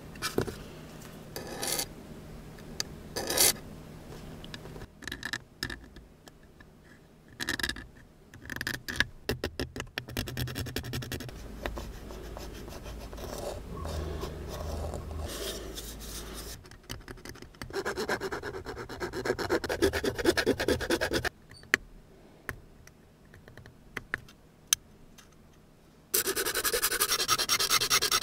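Hand tools working a 3D-pen plastic boat hull up close: a pencil scratching along a paper template, small taps and rubbing as the hull is handled, and spells of quick back-and-forth rasping. The last spell, near the end, is a needle file filing the inside of the hull.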